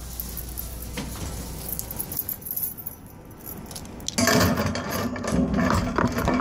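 Light metallic jingling and clinking. About four seconds in, louder rustling handling noise starts as the phone rubs against clothing.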